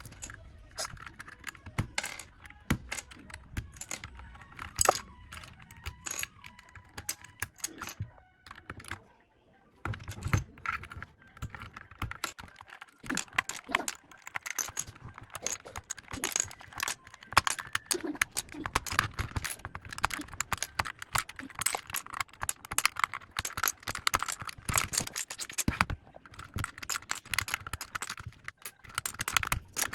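Typing on a mechanical keyboard: rapid, irregular key clacks. They are sparser at first, stop briefly about nine seconds in, then come thick and fast.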